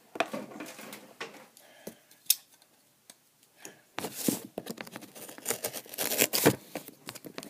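Corrugated cardboard shipping box being handled and worked open by hand: scraping, crackling and knocking of cardboard and packing tape, sparse at first, then busier from about halfway through.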